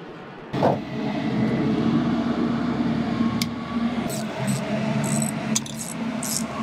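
A motor running steadily with a low hum, starting suddenly about half a second in, with scattered metallic clinks of hand tools on an outboard's lower unit during its second half.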